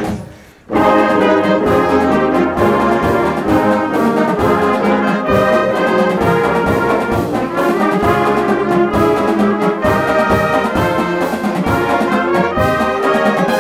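Marching band playing together: brass carries the tune, with saxophones, flutes, clarinets and drums with regular beats. The band comes in sharply after a brief break about half a second in.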